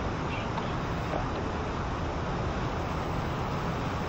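Five-segment SLS solid rocket booster firing horizontally in a static test, a steady rumbling rush of rocket exhaust late in its two-minute burn.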